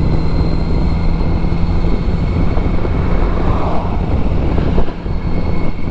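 Kawasaki Z900RS inline-four engine running at steady revs while cruising, with wind and road noise on the microphone. There is a brief dip in loudness near the end.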